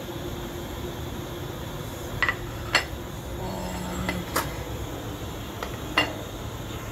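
Several sharp clinks of metal kitchenware, about six in a few seconds, against a steady low background rush.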